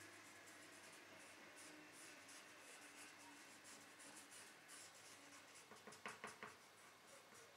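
Faint scraping strokes of thermal paste being spread across a CPU's metal heat spreader, with three louder strokes in quick succession about six seconds in.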